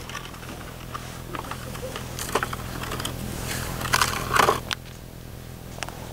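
Footsteps crunching in packed snow: a few scattered steps, with a cluster of louder crunches about four seconds in, over a steady low hum.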